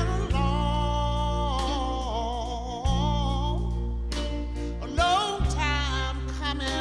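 A man singing a slow soul ballad in a drawn-out vocal line that wavers and slides in pitch, over a live band's held bass notes and chords, which change about three and five seconds in.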